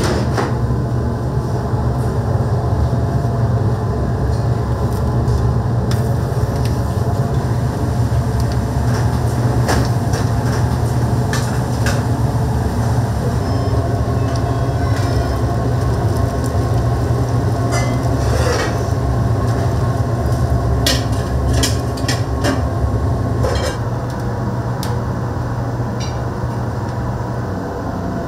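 Commercial kitchen noise: a steady low mechanical rumble, with scattered clinks and knocks of utensils and dishes. The rumble eases off near the end.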